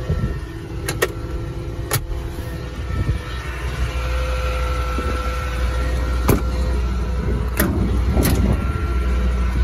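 The Ford F-450's 6.8-litre V10 gasoline engine idling steadily. Several sharp clunks and clicks of doors and latches being worked cut across it.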